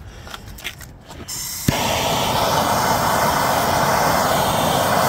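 Handheld gas plumbing torch: the gas starts to hiss just over a second in, catches with a pop, then burns with a steady loud hiss of flame as it heats a copper elbow joint for soldering.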